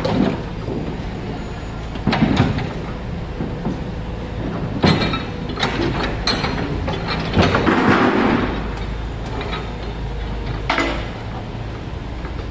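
Komatsu excavator's diesel engine running steadily, with a handful of knocks from the machine at work and a longer rough, grinding stretch about eight seconds in.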